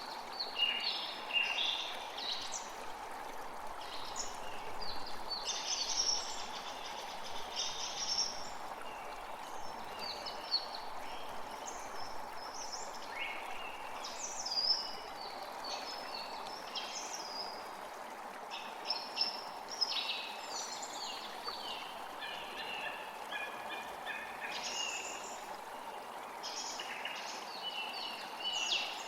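Steady hiss of rain with many birds chirping and singing over it.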